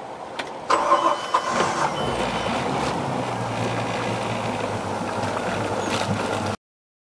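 Volvo Penta 5.0 GXi V8 sterndrive engine starting up: it catches about a second in and settles into a steady idle, with prop wash churning at the stern. Two short high beeps sound during the start. The sound cuts off suddenly near the end.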